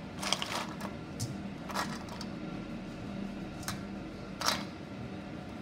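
Ice cubes clinking against each other and a stainless steel bowl as a gloved hand stirs cut mustard green stems in ice water: a few separate clinks spread out, over a faint steady low hum.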